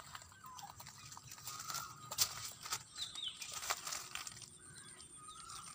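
Leaves and stems of a butterfly pea vine rustling and snapping in short, irregular crackles as the flowers are picked by hand, with faint bird calls in the background.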